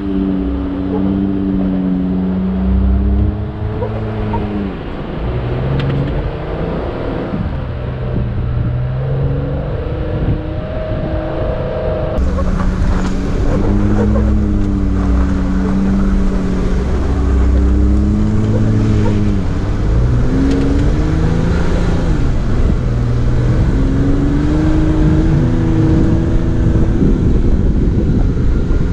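Jeep Wrangler JL Rubicon's engine revving up and down over and over under load as it works through sand on a steep off-road climb, over a continuous low rumble of the drivetrain and tires.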